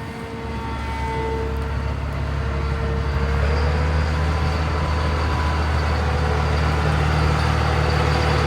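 Farm machinery engine running steadily, a low hum that gets louder about three and a half seconds in and cuts off abruptly near the end.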